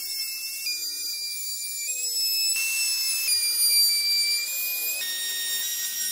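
High-pitched whine of a small high-speed rotary tool working wood. Its pitch shifts in small steps several times as the load on the bit changes.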